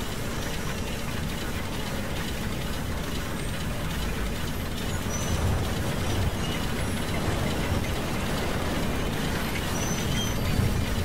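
Steady low mechanical rumble, like a heavy engine running, swelling slightly around five seconds in and again near the end, with a few faint short high chirps over it.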